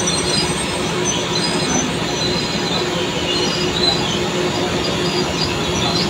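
Drilling rig floor machinery running with a steady loud din and a low hum, with short high metallic squeaks here and there.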